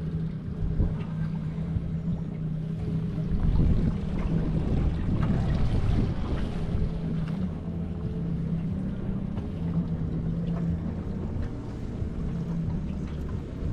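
Boat outboard motor running steadily, a constant low hum, with wind rumbling on the microphone.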